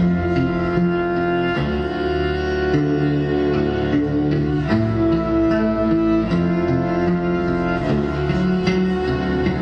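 Electric cello bowed in long held notes, layered over looped cello parts with a steady percussive beat.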